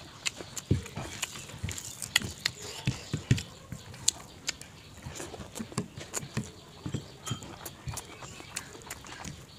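Close chewing and lip smacking of a person eating rice by hand: irregular wet clicks and soft thumps.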